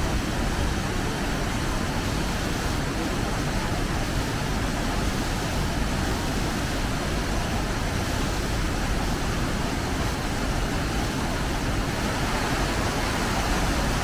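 A waterfall's cascading water rushing steadily, an even hiss and rumble with no breaks.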